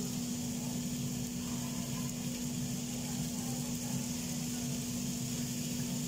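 Chicken skewers sizzling on a hot flat griddle, a steady hiss with a constant low hum underneath.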